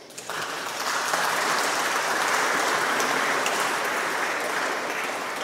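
Audience applauding in a large hall, building quickly, holding steady, then starting to die away near the end.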